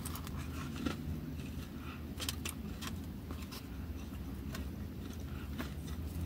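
Eating from a styrofoam takeaway box: a plastic fork clicking and scraping against the foam, with chewing, in scattered sharp clicks over a low steady rumble of the car.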